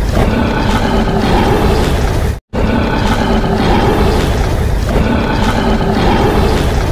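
Loud, dense, rumbling sound-effect track with a deep roar, steady throughout except for a sudden split-second dropout about two and a half seconds in, after which it resumes unchanged.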